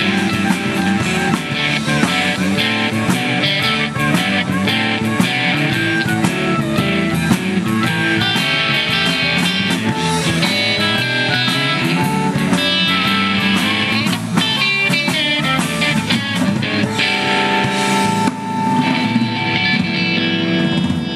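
Live blues band playing an instrumental passage: harmonica played into a handheld microphone over electric bass, electric guitar and a drum kit keeping a steady beat.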